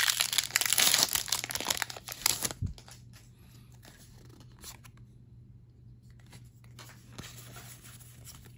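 Foil wrapper of a Pokémon booster pack being torn open and crinkled, loud for the first two and a half seconds, then stopping. After that only faint rustling as the cards are handled.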